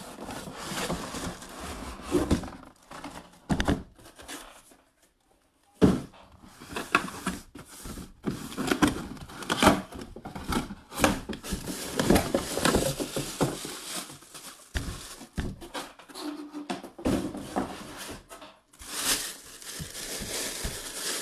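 Packaging of a boxed full-size football helmet being opened and handled: irregular crinkling, rustling and tearing, with a sharp thunk about six seconds in.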